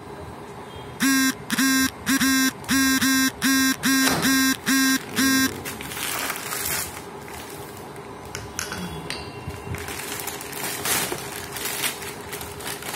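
A harsh electronic buzzer sounds about ten times in short pulses, roughly two a second, then stops about five seconds in. Faint rustling and scattered clicks follow.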